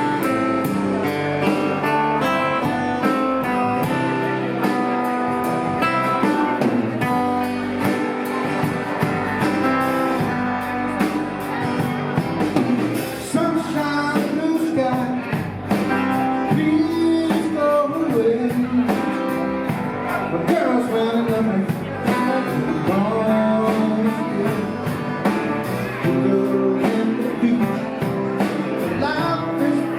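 A band playing a blues song led by guitar, with a steady beat.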